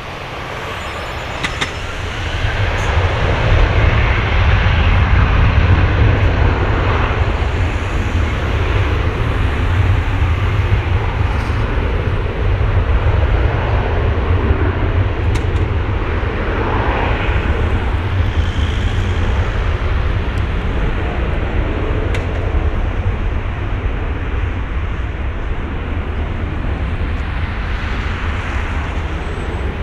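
Jet engines of an Airbus A330-200, its twin General Electric CF6-80E1 turbofans, spooling up to takeoff power about two seconds in. They then run as a loud, deep, steady rumble that slowly fades as the airliner rolls away on its takeoff run.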